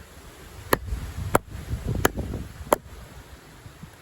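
Condor Heavy Duty Kukri, a heavy high-carbon-steel blade, chopping into a wooden log. It lands five sharp strikes about two-thirds of a second apart.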